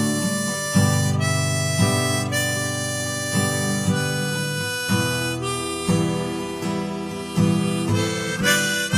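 Acoustic rock-blues instrumental intro: held melody notes over acoustic guitar, with a new strum or note change roughly every second.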